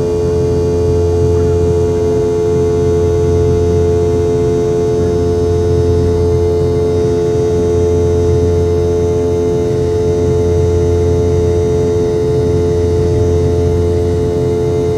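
Steady cabin drone of a Boeing 717 in flight after takeoff: its two tail-mounted Rolls-Royce BR715 turbofans and the airflow give a constant hum with a strong steady whine, heard from inside the cabin.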